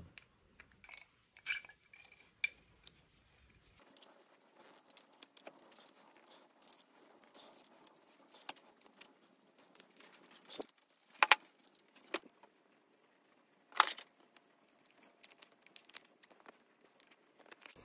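Light metallic clicks and clinks from a hand tap being turned with an adjustable wrench to cut threads in a drilled metal gas cap. The clicks are scattered and irregular, with a few sharper ones.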